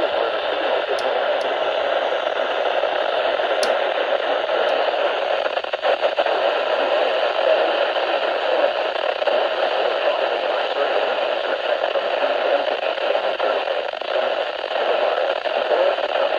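Steady hiss of radio static from a weather radio receiver on a weak signal, with a few faint ticks in the first few seconds.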